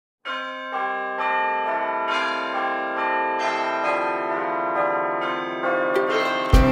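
Bells ringing, a new stroke about every half second, the tones ringing on and overlapping one another. Just before the end, loud music with a strong low end cuts in.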